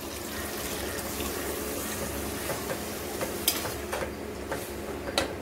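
Coconut milk being poured into a pressure cooker of rice, a steady liquid pour and splash, with a few sharp clinks of a steel ladle against the pot as it is stirred.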